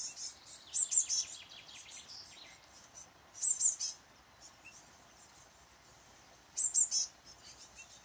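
Small songbirds chirping: three short bursts of high-pitched chirps, about a second in, about halfway and near the end, with a faint run of quick notes in the first two seconds.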